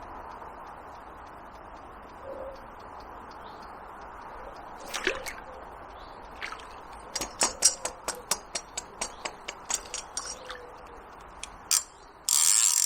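Steady rush of flowing river water. Partway through comes a quick, even run of light clicks, about five a second, and a short, loud burst of noise near the end.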